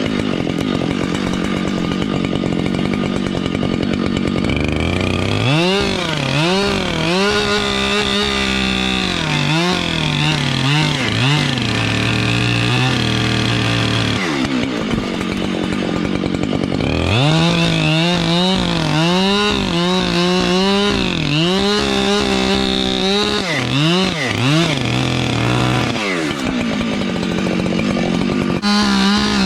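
Husqvarna 592XP large two-stroke chainsaw revving hard through two long cuts in wood. Its pitch wavers, dropping as it bogs under load and recovering. It eases back to lower revs between the cuts, about halfway through and again near the end.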